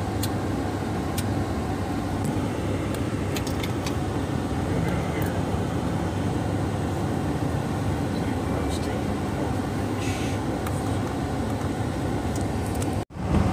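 Steady road and engine noise of a moving car, heard from inside the car; the sound cuts out briefly near the end.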